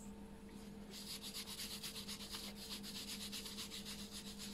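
A solvent-soaked cotton pad scrubbed briskly back and forth over an etched printed circuit board, wiping off the toner mask. The quick rubbing strokes start about a second in.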